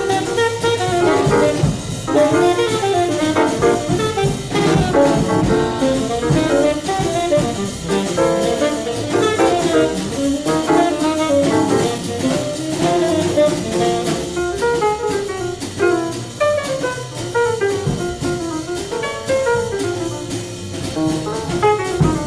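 Small-group jazz recording: tenor saxophone playing a busy melodic line over drums and double bass.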